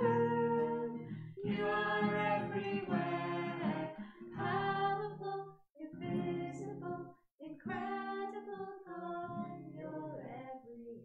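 A worship song: a singing voice over acoustic guitar, in phrases with short pauses between them, growing quieter toward the end.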